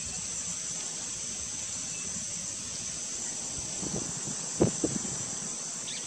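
Steady high-pitched chorus of insects, constant throughout. About four and a half seconds in come two brief, louder, low sounds.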